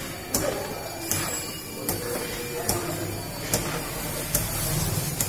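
Manual knapsack sprayer being hand-pumped, its lever clicking in a steady rhythm about once every 0.8 seconds over a continuous hiss of spray.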